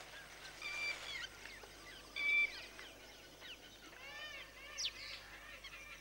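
Indian peafowl giving short honking calls, one about a second in and another about two seconds in, then a quick run of fainter calls around four seconds in.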